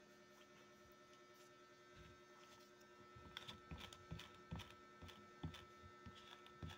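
Eraser wiping marker off a whiteboard: faint rubbing with a few light knocks, starting about halfway through, over a faint steady hum.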